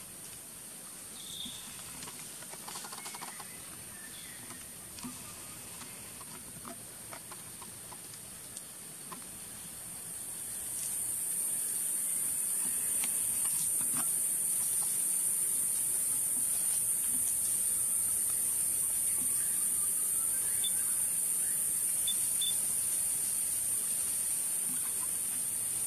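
Forest insects droning in a high, steady hiss that swells louder about ten seconds in and then holds. A few faint chirps and small clicks sound over it.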